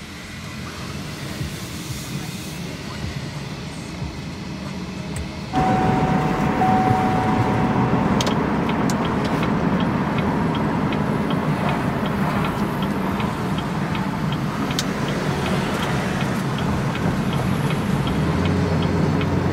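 Car interior noise, the car running on the road, comes in suddenly about five seconds in. From about eight seconds in there is an even ticking, about two clicks a second, typical of a turn signal.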